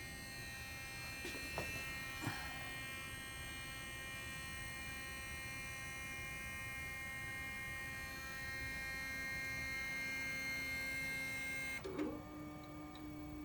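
Stepper motors of a CNC-converted liquid-handling robot running, with the syringe pump's stepper driving a belt and ball screw to dispense fluid: a steady electric whine made of several pitches. There are two small clicks in the first few seconds, and near the end the whine cuts off and gives way to a lower steady hum as the motion changes.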